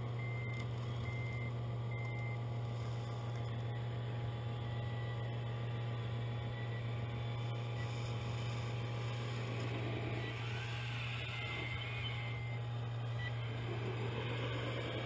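Scale RC truck sound module: a steady diesel-engine drone, with a reversing beeper sounding about once a second that stops about two seconds in. Rising whines come in near the end.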